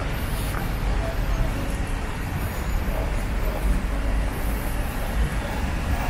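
Steady road traffic noise from cars passing along a multi-lane city avenue.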